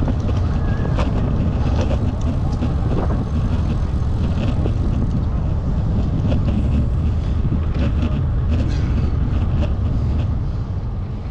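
Wind buffeting the microphone of a camera riding on a bicycle, a steady heavy rumble with scattered light clicks and rattles over it. It fades out near the end.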